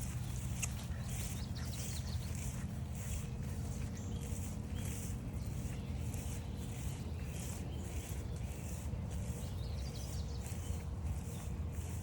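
Footsteps crunching along a forest trail at walking pace, about three steps every two seconds, over a low rumble of wind and handling noise, with a few faint bird chirps.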